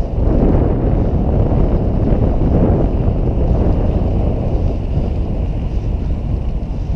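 Wind buffeting the microphone of a camera riding along on a moving bicycle, a loud, steady rushing rumble.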